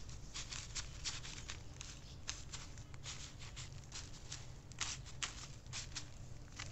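Small hand trowel scraping and pressing potting soil into place around a transplanted seedling, in a string of short, irregular scrapes, the blade brushing over plastic mulch film.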